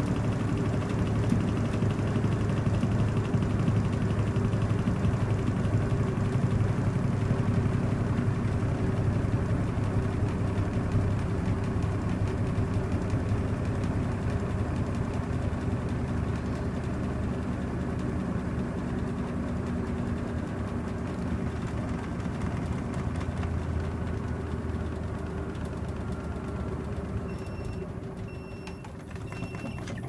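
Gorenje SensoCare front-loading washing machine running with a steady motor hum while its drum turns in heavy suds, the suds-lock condition. The hum fades away over the last few seconds, and three short beeps sound near the end.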